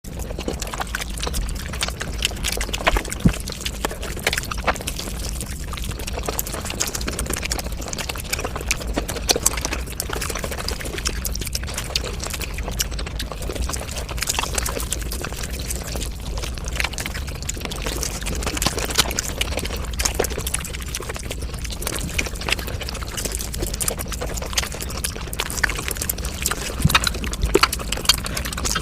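Close-miked eating sounds sped up several times over: a rapid, dense stream of wet chewing and mouth-smacking clicks over a steady low hum.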